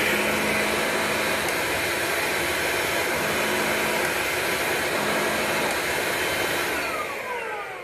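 Hoover LiNX cordless stick vacuum's motor running steadily, then switched off near the end, its whine falling in pitch as it spins down.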